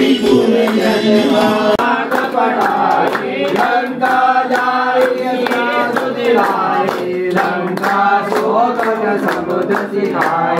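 A group of men and women singing a Hindu devotional hymn together in unison. From about two seconds in, rhythmic hand clapping keeps time with it.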